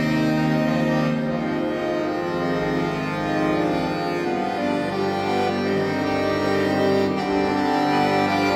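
Solo concert chromatic button accordion (bayan) playing held chords in several voices. The full, steady sound changes harmony every second or so.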